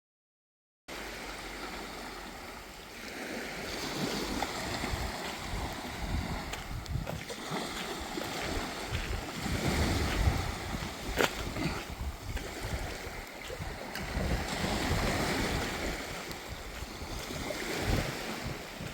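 Wind buffeting the microphone over the wash of sea waves on a beach, starting suddenly after a second of silence, with a sharp click about eleven seconds in.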